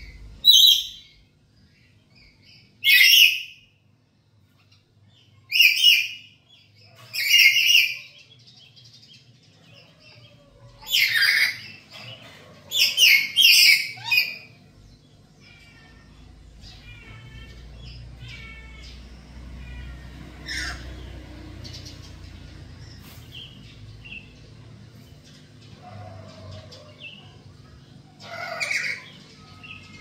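Black-capped lories calling: loud, harsh shrieks in short bursts every few seconds, several in quick succession in the middle, with softer chirping whistles in between.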